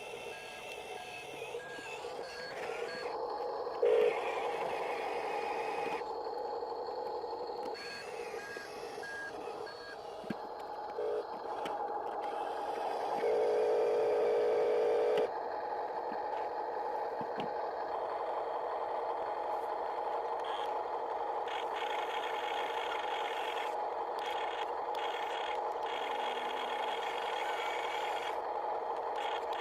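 Huina 1573 RC excavator's small electric motors and gearboxes whining steadily as it works. Short electronic tones come in a few times, with a louder one lasting about two seconds around the middle.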